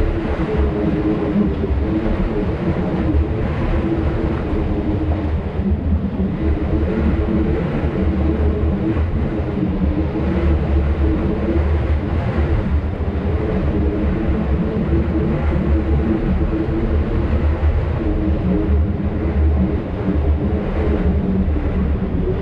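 Side-by-side UTV engine running steadily as the machine drives slowly along, its note holding even with only slight dips.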